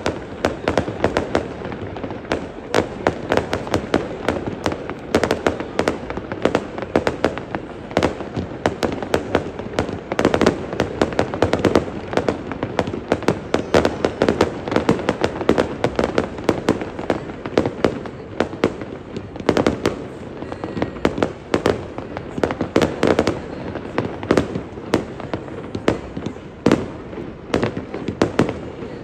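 Fireworks display: a continuous run of sharp bangs and crackling pops, many each second, without a break.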